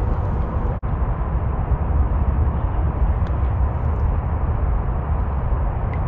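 Wind buffeting the camera microphone, a steady low rumble that cuts out for an instant under a second in.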